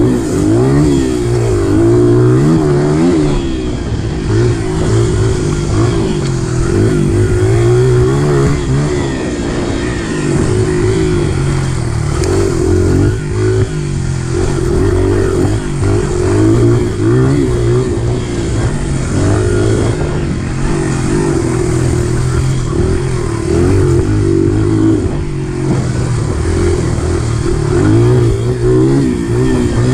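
Youth dirt bike engine being ridden hard, its pitch rising and falling continuously as the throttle opens and closes.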